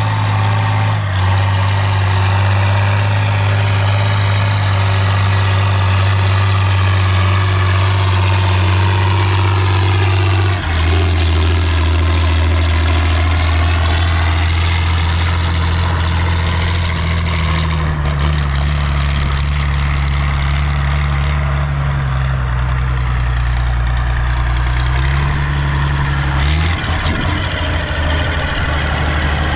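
Valmet 118 tractor's diesel engine running hard through a straight-pipe exhaust, loud and steady, its note shifting a few times.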